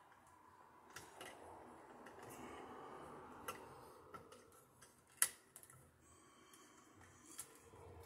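Faint rustling and a few sharp clicks of stiff electrical wires and wire nuts being handled and pushed around in a wall outlet box, the sharpest click about five seconds in.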